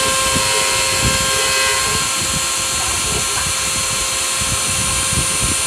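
A CNC router's spindle runs at steady speed with a constant whine while its engraving bit mills traces into a copper-clad circuit board.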